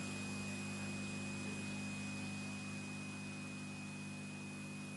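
Steady electrical hum with a faint hiss and a thin, high steady tone; no voices or other events.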